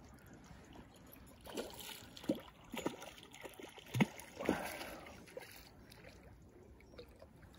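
A handful of short water splashes and sloshes close by at the lake's edge, bunched together between about a second and a half and five seconds in.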